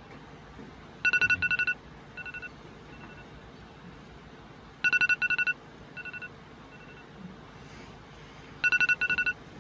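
Electronic phone tone beeping: a rapid pulsed beep at one pitch comes in three loud bursts about four seconds apart, each followed by a few quieter repeats.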